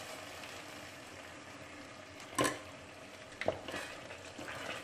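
Hot broth ladled into a stainless pan of risotto rice and diced pumpkin, sizzling steadily. About two and a half seconds in comes a sharp clink of the metal ladle, the loudest sound, then a second smaller knock and a wooden spoon stirring and scraping the rice in the pan.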